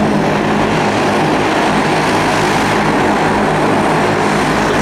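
Bombardier Dash 8-102's twin turboprop engines running as it taxis: a loud, steady propeller drone with a low hum underneath.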